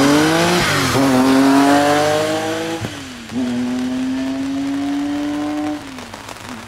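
Porsche 911 Carrera rally car's air-cooled flat-six at full throttle, revving up through the gears. There are two quick upshifts, one shortly after the start and one about three seconds in, and the engine lifts off near the end as the car pulls away.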